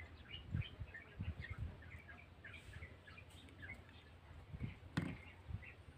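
Birds chirping in a quick run of short chirps, several a second, with a few soft low thumps of handling, the strongest about five seconds in.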